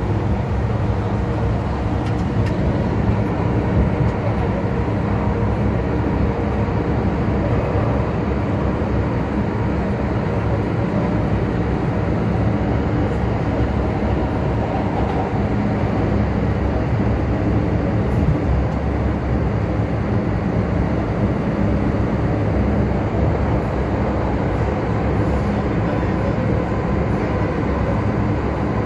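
Steady running noise inside a car of an MTR M-Train (Metro-Cammell electric multiple unit) at speed in the tunnel: a constant low rumble of wheels on rails, with a few faint steady hum tones.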